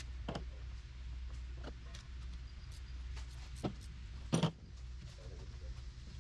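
Scattered metal clicks and taps of hand tools and bolts on a Suzuki Samurai transfer case's aluminium housing as its bolts are taken out, with one louder knock about four and a half seconds in. A low steady hum runs underneath.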